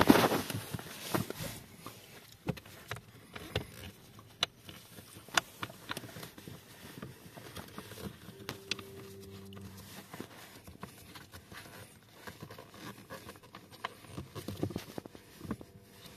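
Irregular light plastic clicks, taps and rustling from hands handling the blower motor housing under a Honda Civic's dashboard, with a louder burst of rustle and knocks at the very start.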